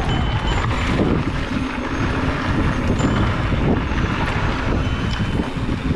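Wind buffeting the camera microphone and tyres rumbling over a dirt singletrack as an electric mountain bike rides fast. The noise is steady and loud, with a thin high whine briefly at the start and again near the end.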